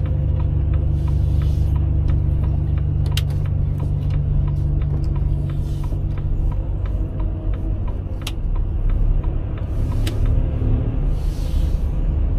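Truck's diesel engine running with a steady low rumble inside the cab during slow manoeuvring, with a light regular ticking, a few short hisses and occasional clicks.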